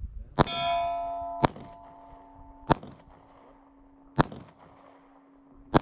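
Five handgun shots at a hanging steel target, one every one to one and a half seconds. Each hit rings the steel plate, the first ring the loudest and longest, and a low ringing tone carries on between the hits.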